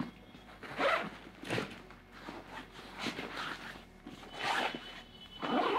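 Safari Seek 45-litre nylon backpack being handled: a zipper drawn and straps and fabric rustling, in about five short bursts.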